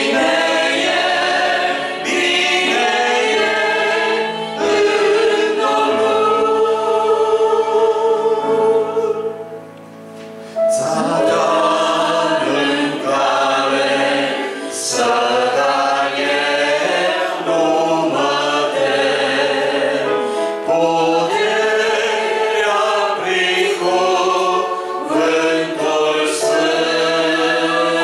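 Congregation singing a hymn together in Romanian, led by a man's voice on a microphone. The singing stops briefly about ten seconds in and then picks up again.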